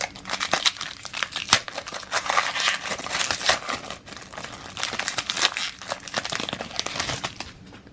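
Crinkling and tearing of a trading-card pack's foil wrapper as it is torn open and handled, stopping shortly before the end.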